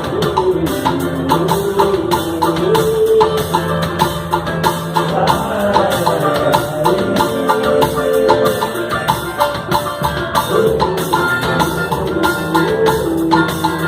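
Live samba band playing an instrumental passage: fast, steady hand percussion with a melodic line wandering over it.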